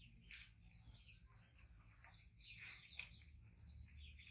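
Near silence: faint background hum with scattered faint, short high-pitched chirps.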